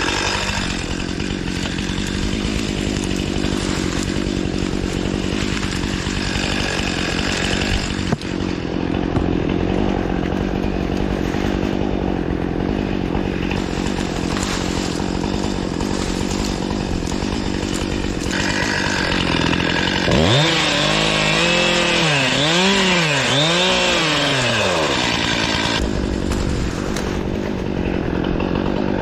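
Stihl MS 261 C two-stroke chainsaw running steadily, with a brief drop about a quarter of the way in. About two-thirds of the way through, its engine pitch swings up and down four or five times in quick succession before settling back.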